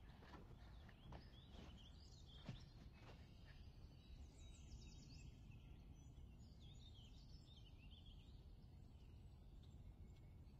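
Near silence: faint outdoor ambience with a few soft ticks in the first few seconds, then faint bird chirps from about four seconds in.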